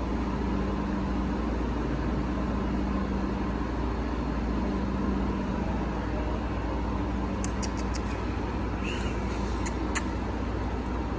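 Steady low mechanical hum of a parking garage, with a few sharp clicks and a short high squeak near the end.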